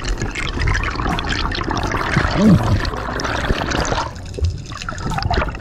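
Underwater bubbling and rushing water heard on a submerged camera, dying down after about four seconds, with a brief low sliding tone about halfway through.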